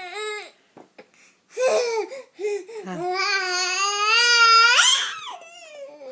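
Six-month-old baby vocalizing: a couple of short babbling sounds, then a long drawn-out fussy wail that jumps sharply up into a squeal near the end and falls away.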